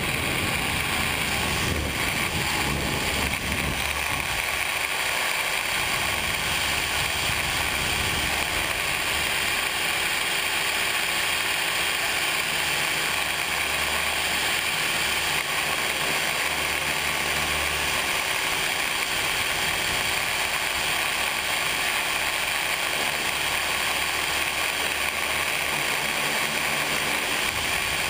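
Radio-controlled helicopter's motor, gears and rotors running at flight speed, heard up close from a camera mounted on the helicopter: a steady, unbroken whine and rush.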